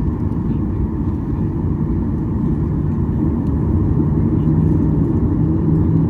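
Steady low rumble of a Boeing 737-800's CFM56-7B jet engines as heard inside the passenger cabin. A low hum in it grows stronger about halfway through, and the level rises slightly.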